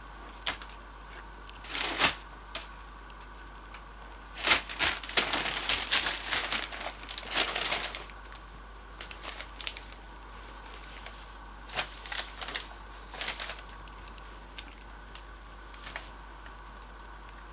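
Rustling and crinkling from cocker spaniel puppies moving about: a short burst about two seconds in, a longer run of several seconds, then a few shorter bursts later on.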